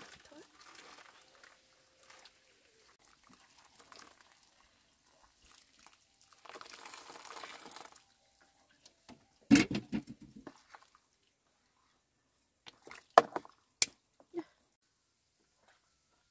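A brief rush of water, then a heavy knock and a few sharp clicks, with faint handling sounds in between.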